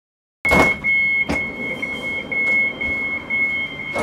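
Train carriage interior: rumble with a few sharp knocks and a steady high electronic tone, cutting in suddenly about half a second in.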